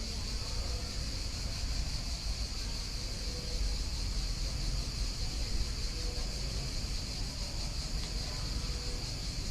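A steady, unbroken chorus of insects, such as crickets, trilling high, over a low rumble.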